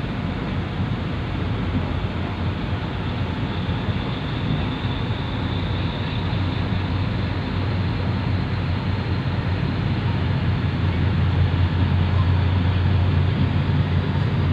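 Small harbour ferry under way: a steady low drone from its propulsion with a haze of rushing water and wind, the drone growing louder about ten seconds in.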